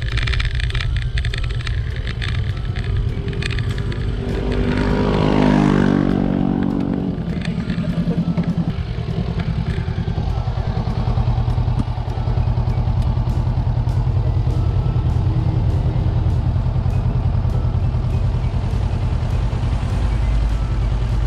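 A motor vehicle passes close by about four to eight seconds in, loudest around five and a half seconds, its engine pitch falling as it goes past. Under it runs a steady low rumble.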